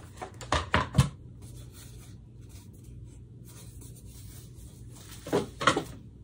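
Short knocks and scrapes from a rigid gesso board being handled and turned over: a quick cluster of knocks about half a second in and another about five seconds in.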